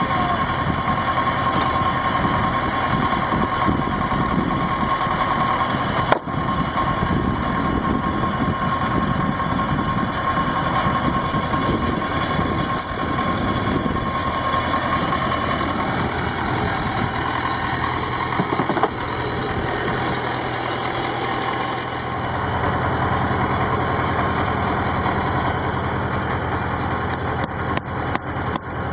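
Farm tractor engine running steadily while powering the hydraulics of a tractor-mounted fence post driver, with a steady whine for the first half and a single knock about six seconds in. Near the end come a run of quick, sharp taps.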